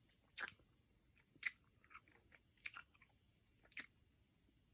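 A person chewing a soft melon Puccho candy close to the microphone: faint wet mouth smacks and clicks, about one a second.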